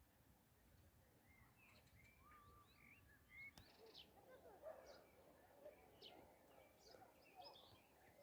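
Faint birdsong: several birds chirping and calling in short, sliding notes, busier from about halfway, with one sharp click near the middle.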